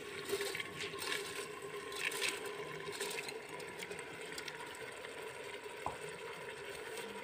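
Soaked basmati rice tipped from a plate into a pressure cooker of frying vegetables, giving a faint soft patter of grains and a light sizzle for the first few seconds. A faint steady hum runs underneath.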